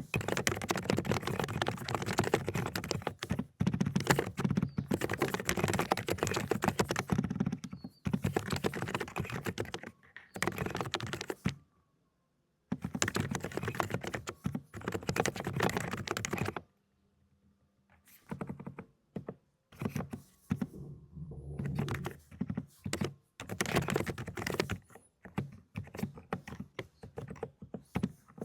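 Fast typing on an Aula ("독거미") mechanical keyboard fitted with low-noise Cotton Candy switches: dense runs of soft keystrokes in bursts. The typing stops briefly twice around the middle and becomes choppier near the end.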